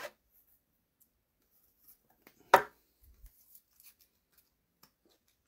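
Trading cards and their packaging being handled: one sharp click about halfway through, then faint rustles and small ticks.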